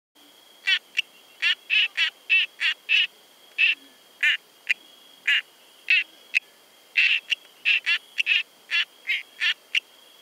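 Dendropsophus norandinus tree frogs calling: short, rapidly pulsed, high notes, about two or three a second, starting suddenly just after the start, over a faint steady high whine.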